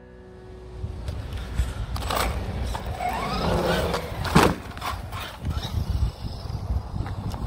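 JLB Cheetah brushless RC monster truck driving hard: its electric motor whines up and back down, over a low rumble of tyres and ground noise. A sharp knock about four and a half seconds in.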